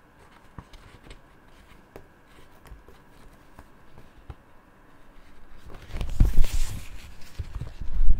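Paper sheet being handled: faint scattered ticks and taps, then about six seconds in a louder rustling with low bumps as the sheet is lifted and held.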